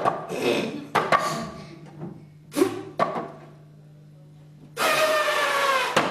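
Sharp knocks and clacks of a bone puppet handled against a wooden box, several in the first three seconds, mixed with short wordless voice sounds. Near the end comes one long, slightly falling pitched vocal tone lasting about a second.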